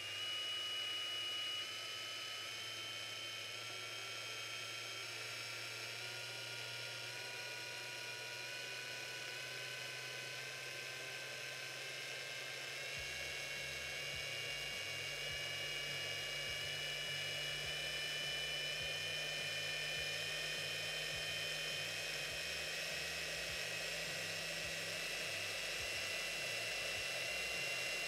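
Hilti SF 6H-22 cordless hammer drill running with no load, its motor whine rising very slowly and steadily in pitch as the trigger is squeezed bit by bit. This shows its fine variable-speed trigger control.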